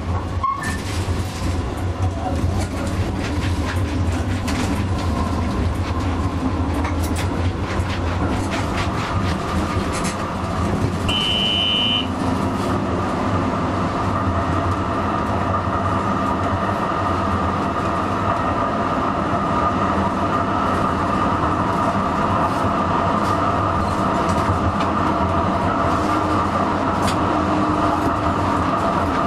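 Comeng A-class tram running on street track, with many short sharp clicks through the first half. A brief high tone sounds about eleven seconds in, and a steadier hum sets in from about fourteen seconds on.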